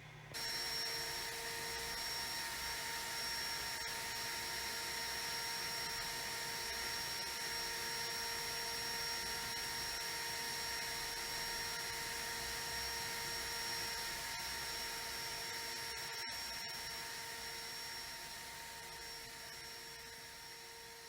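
Kärcher WD1 wet-and-dry vacuum cleaner running steadily, an even rushing of air with a constant motor whine. It fades out slowly near the end.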